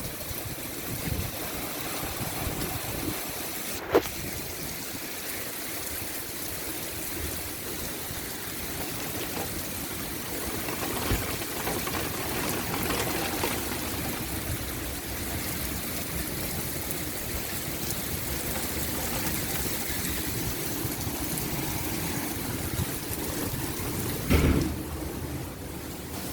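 Heavy rain pouring down steadily, a constant hiss of rain with water splashing and running on the ground. A sharp click about four seconds in and a brief louder burst near the end.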